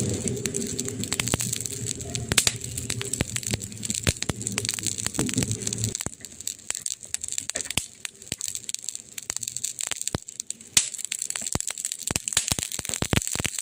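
Burning wood crackling: a dense, irregular run of pops and snaps, with a low steady rumble underneath that stops about six seconds in.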